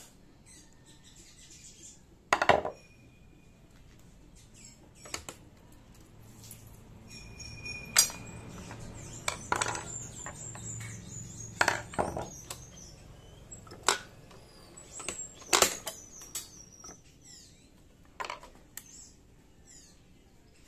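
Sharp metallic clicks and clinks of a screwdriver and small steel parts against the needle bar and presser-foot area of a Siruba industrial buttonhole machine being taken apart, about a dozen at irregular intervals.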